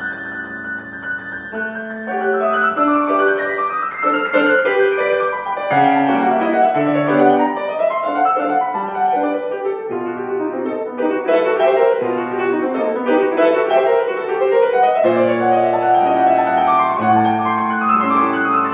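Piano playing a classical piece: a continuous flow of notes, with a melodic line over lower accompanying chords.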